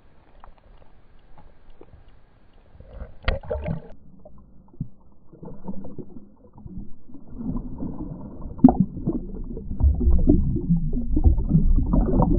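Water sloshing and splashing around a kayak, with small knocks and clatter, louder in the second half.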